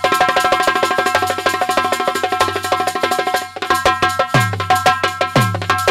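Instrumental break of a jikdi bhajan: dholak drumming a quick, steady beat with the jhika jingling, over held melodic notes. Twice near the end, a deep dholak bass stroke slides down in pitch.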